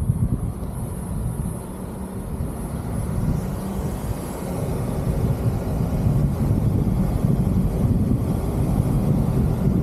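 Low, steady rumble of a car driving on a gravel road, heard through a roof-mounted camera: tyre, road and wind noise, getting a little louder about halfway through.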